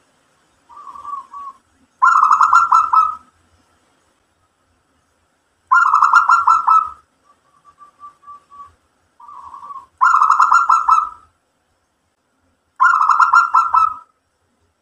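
Zebra dove (perkutut) cooing: four loud, rapidly pulsed coo phrases about every three to four seconds, with softer short coos between them.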